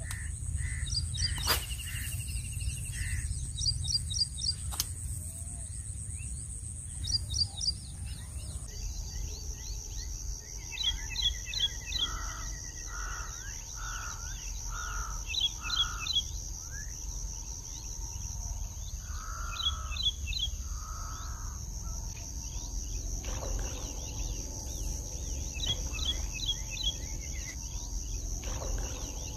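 Birds calling around open water: groups of quick, high chirps repeated every few seconds, with some lower rounded calls. Underneath run a steady high-pitched whine and a low rumble, and there are a couple of sharp clicks in the first few seconds.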